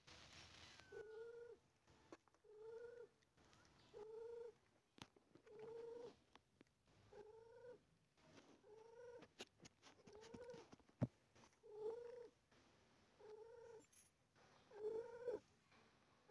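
Cat making a soft, regular series of short pitched calls, about one every second and a half, around ten in a row, with a few faint clicks between them.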